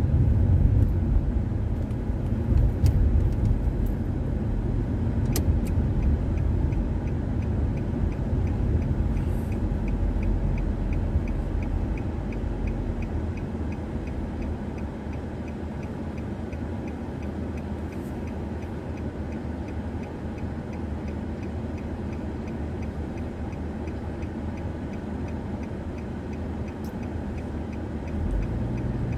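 Car's engine and road noise heard from inside the cabin, easing as the car slows around the middle. From about ten seconds in, a steady run of ticks like a turn-signal indicator clicking.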